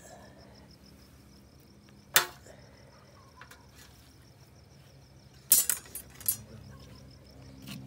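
A steady, evenly pulsing high insect chirp, broken by one sharp click about two seconds in and a quick run of three or four sharp clicks about five and a half seconds in.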